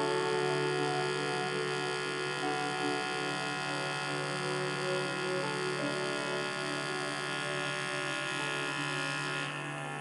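Background music of slow, held tones and chords that change every few seconds, with a steady low hum underneath.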